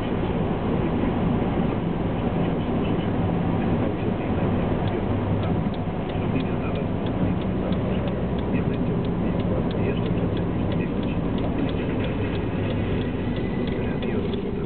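Steady road and engine noise inside a moving car's cabin. From about five seconds in, a regular ticking runs alongside it.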